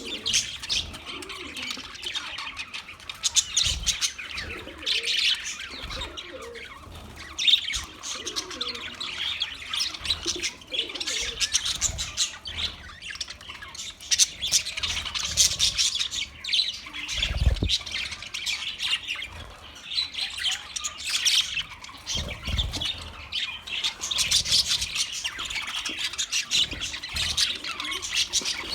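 A flock of budgerigars chattering and chirping continuously, with scattered squawks and a few soft low thumps.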